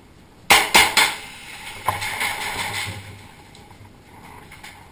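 A gas-blowback airsoft pistol fires three quick shots about a quarter second apart. About a second later there is a click and a hiss of about a second, as the gas magazine vents all of its gas.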